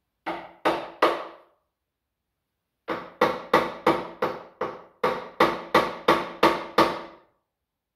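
Hammer blows on metal, each ringing briefly. There are three strikes, a pause, then about a dozen in a steady rhythm of about three a second.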